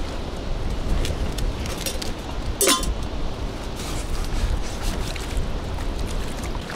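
Wind rumbling against the microphone on a small boat on open water, with a few light clinks of fishing gear and one short squeak falling in pitch about two and a half seconds in.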